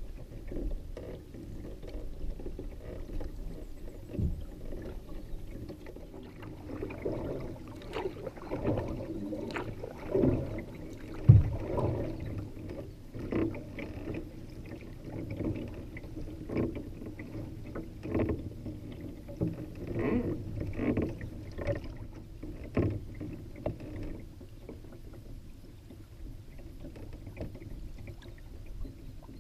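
Canoe paddling: a wooden paddle dipping and pulling through lake water in repeated strokes about every second or so, with water splashing and trickling along the canoe's hull. One sharp, loud knock sounds about eleven seconds in.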